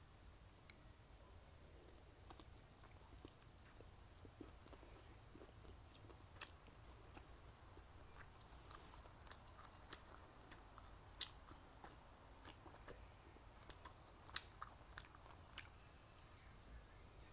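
Faint close-up chewing and biting of spicy stir-fry and rice, with scattered sharp crunchy clicks, the loudest about six and eleven seconds in and a small cluster near fourteen seconds.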